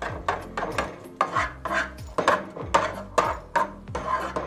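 A black plastic spatula scraping and stirring diced onion in oil in a nonstick frying pan, over background music with a steady beat of about two a second.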